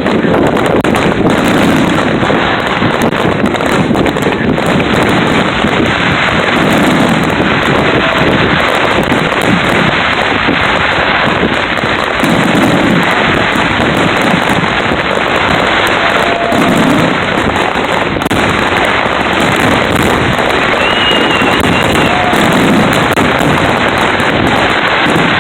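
Fireworks display: a loud, continuous, dense crackle of many small bursts, with deeper bangs every few seconds.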